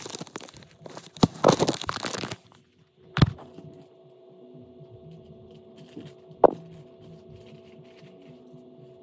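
Paper and cardboard packaging rustling and crinkling for about two seconds, then a single sharp knock. After the knock comes a faint steady hum with a soft knock and then a louder one.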